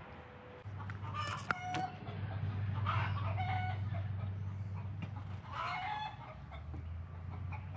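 Chickens clucking, three short bouts of calls spread across a few seconds, over a steady low hum.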